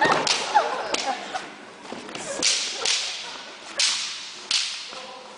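Walking canes swishing and cracking in a staged Bartitsu cane fight: about six quick, sharp swishes spread over a few seconds.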